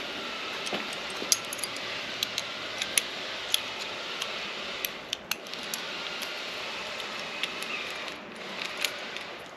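Light metal clicks and clinks, a dozen or more at irregular intervals, as a motorcycle clutch lever and its clamp are handled and fitted onto a clip-on handlebar, over a steady background hiss.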